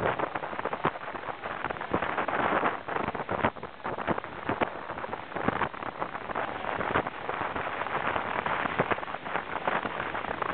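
Water rushing along a fast-moving sailboat's hull, with spray splashing up and pattering down in many sharp little hits over a steady hiss.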